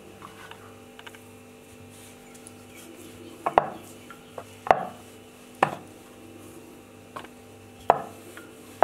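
Wooden rolling pin knocking against a wooden rolling board while a strip of dough is rolled out: a few sharp wooden knocks roughly a second apart, starting about three and a half seconds in, with fainter taps between.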